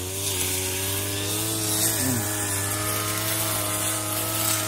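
Engine-powered brush cutter running steadily as it cuts a path through grass and weeds.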